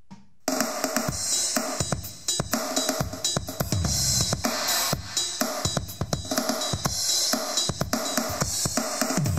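Music played through Cambridge Audio YoYo M stereo speakers: after a brief gap, a new drum-led track with cymbals starts about half a second in.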